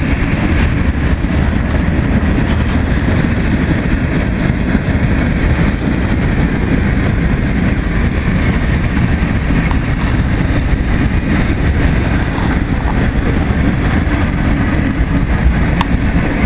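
Freight train rolling past, a steady low rumble of its flatcars' wheels on the rails.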